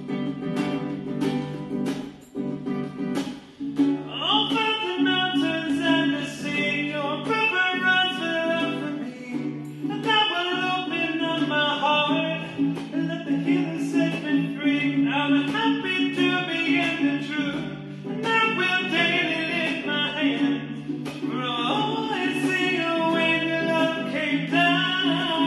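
A man singing to his own ukulele strumming. The strumming plays alone for about four seconds before the voice comes in.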